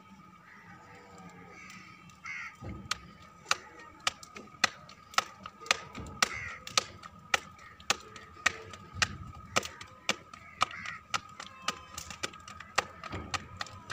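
Hands slapping a ball of roti dough flat between the palms, a sharp pat about twice a second that starts about three seconds in. A few bird calls sound in the background.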